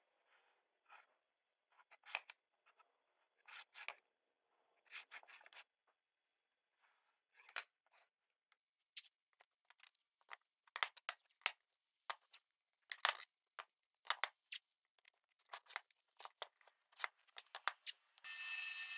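Light handling sounds on a plywood workbench: scattered short scratches, taps and clicks of a pencil against a ruler, plywood pieces being picked up and set down, and masking tape being pulled and torn off. The taps come sparse at first and thicker in the second half. Near the end a steady drill-press motor starts running.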